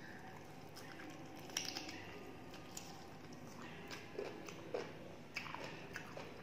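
Close chewing and biting of a mouthful of rice and fried vegetables, with irregular soft clicks and crackles as fingers mix rice on a steel plate.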